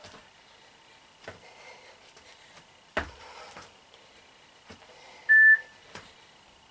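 Feet landing from lateral and vertical jumps on foam exercise mats: soft thumps every second or two. About five seconds in, one short, high electronic beep, the loudest sound.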